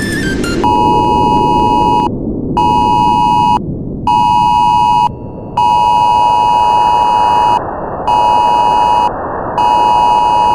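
An electronic beep tone sounds six times in uneven stretches of about one to two seconds each, with short gaps between them, over a steady background hiss.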